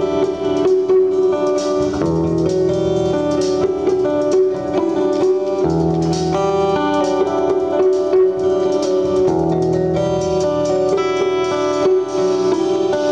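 Live band playing an instrumental piece: picked guitar notes over a long held note, with light drums.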